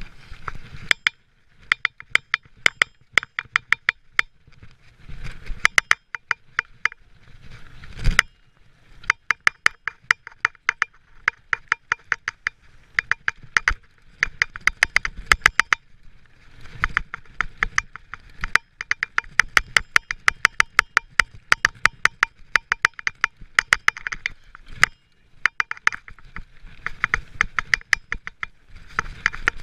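Rear freehub of a Giant mountain bike ticking rapidly in bursts of a few seconds while coasting, silent in the short gaps between, over a low rumble of tyres on the dirt trail. A loud thud about eight seconds in, as the bike hits a bump.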